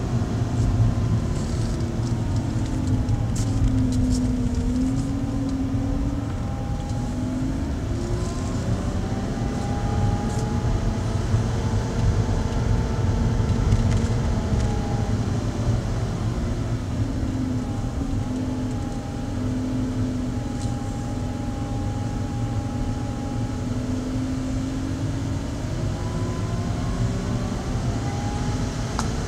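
Car engine and tyre noise heard from inside the cabin: a steady low rumble under an engine hum that slowly rises and falls in pitch several times as the car's speed changes.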